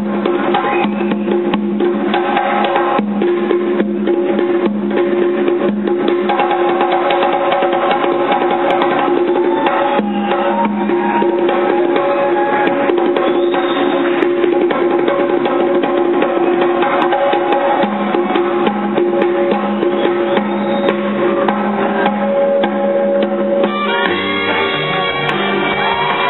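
Live Ethiopian jazz band playing a steady groove, with conga drumming and other hand percussion prominent over held notes.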